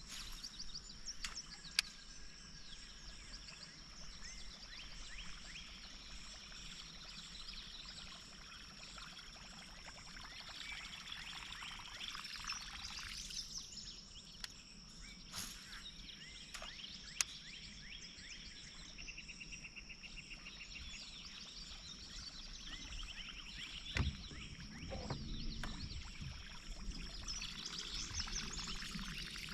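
Outdoor morning ambience: a steady high insect drone with birds chirping, and a few sharp clicks and knocks.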